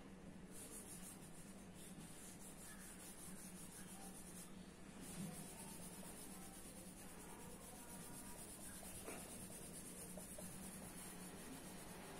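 Faint rubbing of a bare hand wiping marker off a whiteboard, over a steady low hum.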